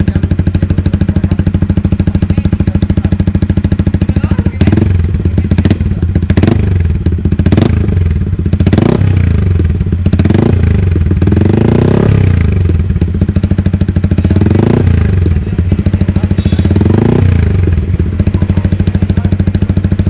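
Yamaha R15 V3's single-cylinder engine idling through a LeoVince GP Corsa carbon short slip-on exhaust, given a series of short throttle blips that rise and fall in pitch, about nine of them, one held longer around twelve seconds in.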